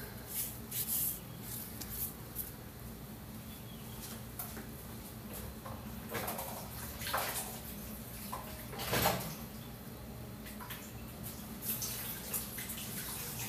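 Corn tortillas cooking on a hot dry comal over a gas burner, giving a steady hiss with scattered small crackles and a few louder hisses of escaping steam as they start to puff. The louder hisses come about six, seven and nine seconds in.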